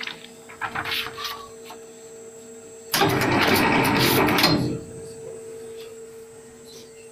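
SX310 book thread-sewing machine running with a steady hum. A few light clicks come about a second in, then a loud noisy mechanical burst lasts about two seconds from around three seconds in.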